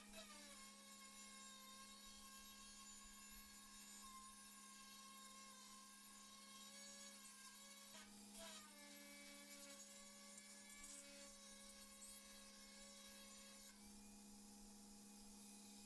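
Faint, thin whine of an electric angle grinder working sheet steel, over a steady electrical hum, the sound badly degraded by a recording fault. The whine dips right at the start and again about eight seconds in, and stops near the end.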